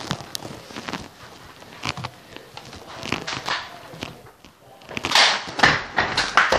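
Scattered clicks and knocks of movement and handling, with a cluster of louder, noisier bursts about five seconds in.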